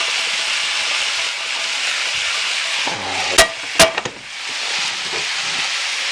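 Sliced sirloin and butter-sautéed mushrooms frying in a sauté pan with a steady sizzle. A little past three seconds in come two sharp knocks against the pan, and the sizzle briefly drops before building again.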